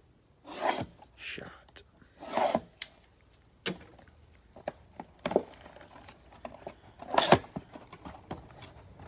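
A football card pack being opened and its cards handled: several short bursts of wrapper tearing and rustling and cards scraping against each other, with small clicks in between.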